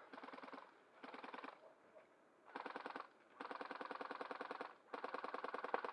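Airsoft electric gun firing five full-auto bursts of rapid, evenly spaced shots, the longest held about a second and a half near the middle.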